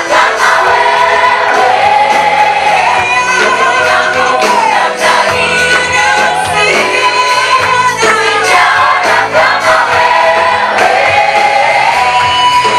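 Choir singing a Swahili gospel praise song over instrumental backing with a steady beat.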